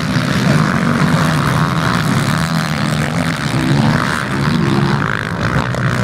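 Several motocross bikes' engines revving up and down as they ride through the turns, their sounds overlapping.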